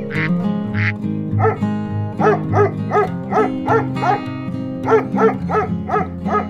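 Pomeranian puppy yapping in short, quick barks, about three a second, in two runs with a pause between, over background music. Two quack-like calls sound in the first second.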